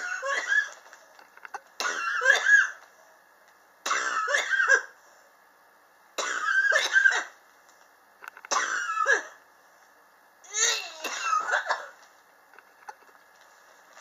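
A person coughing in six bouts about two seconds apart, each a quick run of two or three coughs. It is the persistent cough the person has had for about three years.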